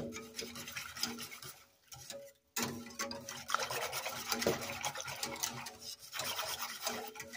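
Wire whisk beating a thick flour-and-water soup base in a stainless steel pot, its wires scraping and ticking against the pot as it breaks up lumps. The whisking stops briefly about two seconds in, then starts again.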